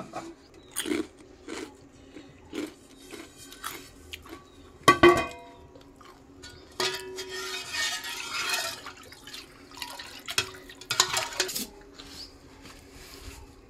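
Aluminium cooking pot, lid and ladle clattering: scattered knocks and scrapes of metal on metal, with one sharp ringing clang about five seconds in.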